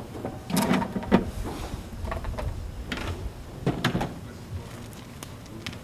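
Hard red plastic tool case for a Hilti hammer drill being shut and shifted across asphalt: a handful of separate plastic knocks and clicks spread over a few seconds.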